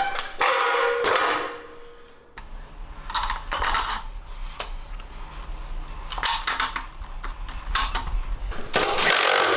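Metal tools and parts clinking and clanking in separate knocks while a mini bike is bolted together, over a low hum. A steady mechanical whirr starts near the end.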